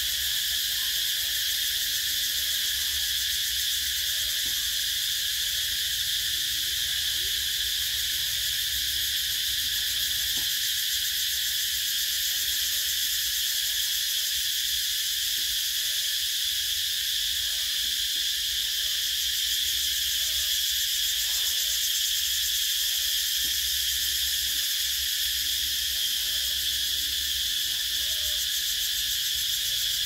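Cicadas singing in a steady, unbroken chorus, a dense high-pitched buzz.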